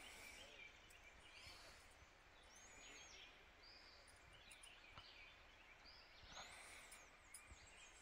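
Near silence with faint, scattered bird chirps and calls.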